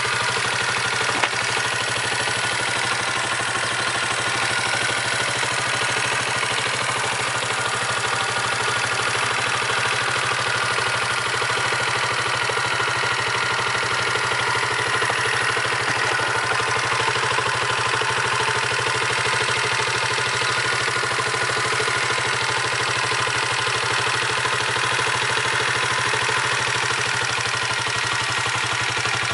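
Hyosung Cruise II 125's single-cylinder, oil-cooled four-stroke engine idling steadily, with one short click about a second in.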